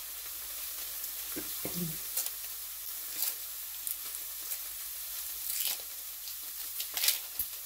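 Steaks and sausages sizzling in a frying pan: a steady hiss with occasional sharp crackles.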